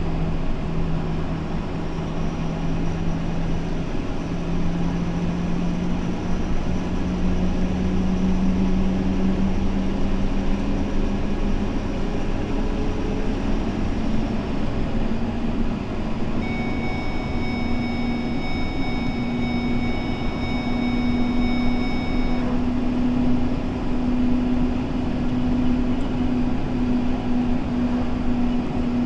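Steady engine drone and tyre and road noise from inside a vehicle cruising along a paved road, the engine note climbing slowly through the first half, then holding steady. A faint, steady high-pitched tone sounds for about six seconds just past the middle.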